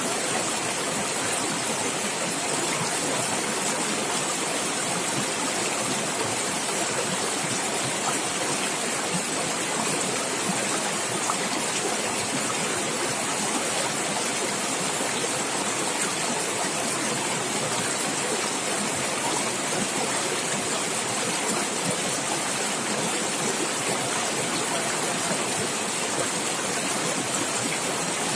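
Water in a stream running and gurgling over rocks: a steady, even rush with no changes.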